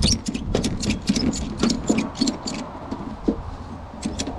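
A string of irregular sharp clicks and light knocks, about three a second, over a low rumble: hands-on handling noise.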